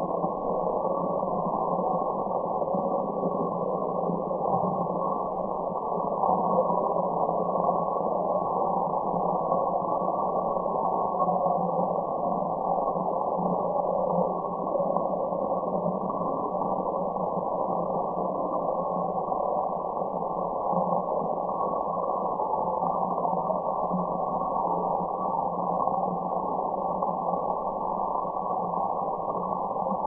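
Continuous white noise playing as a steady, unchanging rush. It sounds dull and muffled, with no high hiss, and carries a faint steady low hum within it.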